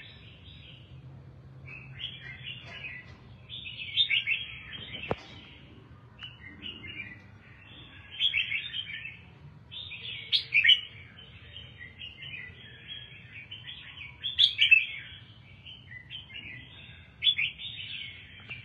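Caged red-whiskered bulbul singing short, bright warbling phrases every second or two, with one sharp click about five seconds in.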